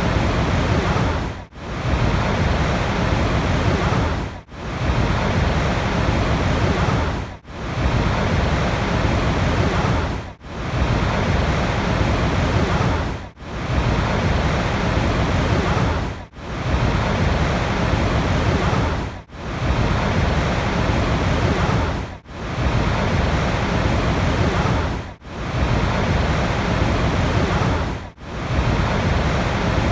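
Steady rushing water noise, heavy in the low end, cut by a brief sharp dip about every three seconds: a short water recording looped over and over.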